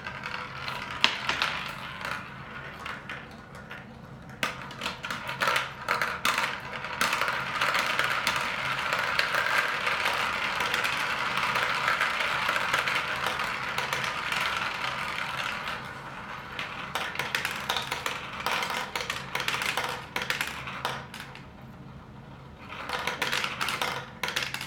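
A handful of Q-Ba-Maze steel marbles clattering through a plastic marble run. From about six seconds to about sixteen seconds the batch circles the marble vortex funnel as a steady rolling rattle, with sharp clicks throughout as marbles drop through the cubes and stunts.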